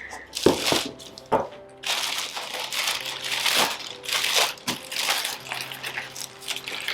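Packaging being unwrapped by hand, rustling and crinkling, with a couple of sharp handling knocks in the first second and a half and steady crinkling from about two seconds in. Faint background music underneath.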